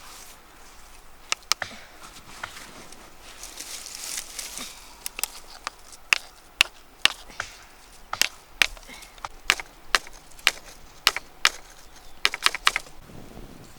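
Chopping on wood: a series of sharp strikes, a few scattered at first, then coming about twice a second from about five seconds in.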